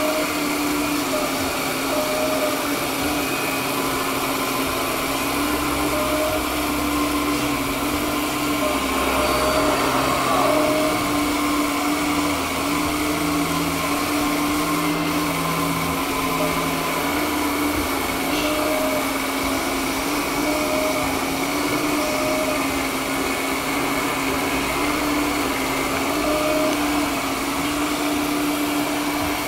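The motors of an RC Liebherr R934 scale model excavator whirring steadily as it works its boom and bucket, the pitch shifting a little as the load changes.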